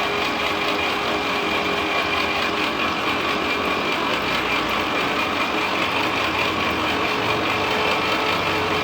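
Restored tractor engine running steadily at an even speed.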